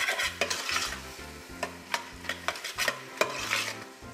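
Seasoned ground-beef patty filling sizzling in a pot while a metal spoon stirs it, scraping and knocking against the pot at irregular moments.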